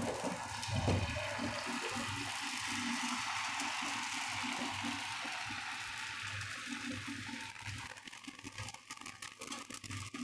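Thin wrapper batter sizzling on a hot oiled tawa as it cooks: a steady hiss that dies down about three-quarters of the way through, leaving scattered crackles as the wrapper sets.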